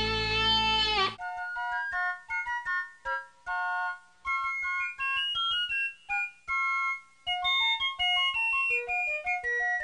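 Background music: a sustained electric guitar chord that bends down in pitch and cuts off about a second in, followed by a light electric piano melody of short notes over a soft ticking beat.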